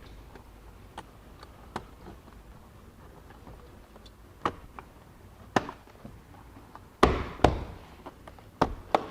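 Plastic interior trim panel being pressed and snapped back into place: scattered light clicks and taps, then a run of sharper, louder knocks about seven seconds in.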